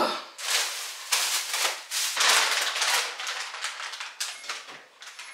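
Plastic-wrapped food packages rustling and knocking as they are handled in a refrigerator's freezer: a run of irregular crinkles and clatters.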